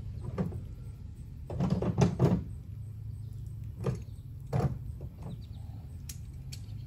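Scattered knocks and clatter of metal tools being handled while searching for a wrench, busiest about one and a half to two and a half seconds in, over a steady low hum.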